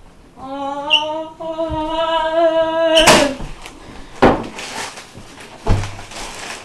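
A person's voice holding one long, loud cry for about two and a half seconds, cut off by a sharp bang, followed by two softer knocks.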